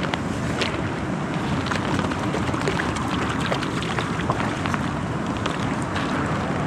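Steady wind rushing and buffeting on the microphone, with a few faint small ticks scattered through it.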